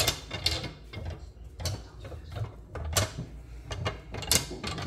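Wooden pool cue rolled fast across a granite countertop in a warp check. The deeply ridged section of the cue knocks against the stone with rapid, irregular clicking, and a few louder knocks come about every second and a half.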